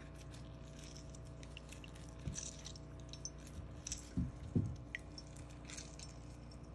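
Lemon half squeezed by hand over a dish of soy sauce: faint squishing of the pulp, with juice dripping into the sauce in a few soft plops, the clearest a little past four seconds in.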